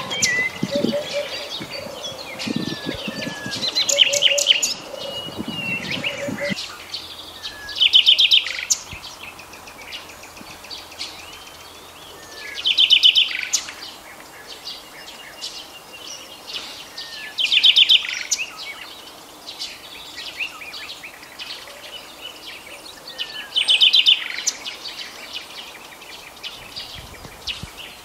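Songbirds singing. One bird repeats a short, fast trill five times, about every four to five seconds, with fainter chirps and whistles from other birds between.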